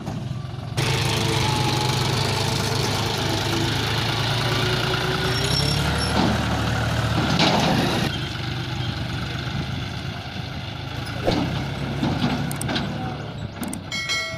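Diesel tractor engine running steadily, with a low rumble, as it pulls a trolley along a dirt track.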